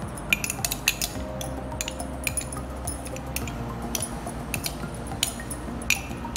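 Metal spoon clinking and scraping against glass while scooping chopped fruit coated in sweetened condensed milk out of a glass tumbler into a glass dessert bowl. Irregular light clinks, a quick cluster about a second in and a sharper one near the end.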